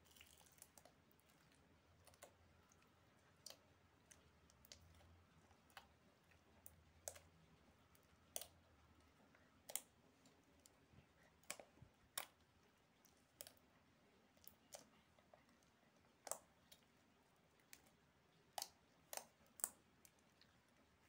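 Clear glitter slime being squeezed and kneaded by hand, giving irregular sharp clicks and pops as trapped air pockets burst, about one or two a second, more often near the end.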